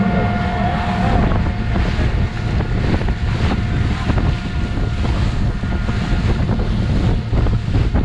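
Heavy wind buffeting the microphone, a dense fluctuating rumble, over the running of a motorboat on open water.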